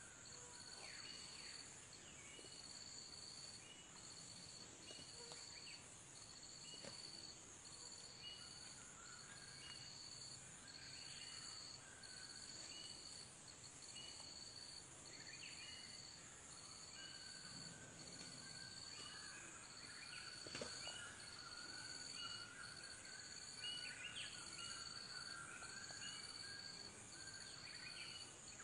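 Faint insect chorus: a steady high-pitched buzzing with one insect's call pulsing about once a second, and scattered short bird chirps.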